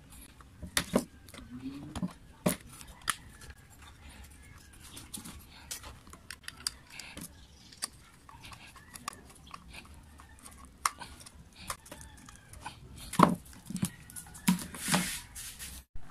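Scattered clicks and knocks of an angle grinder's housing and gear head being handled and screwed back together, with a few louder knocks near the end.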